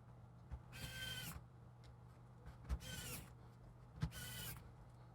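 Small electric screwdriver whirring three times, each run about half a second long and a second or so apart, driving in the screws that hold the laptop's cooling fan.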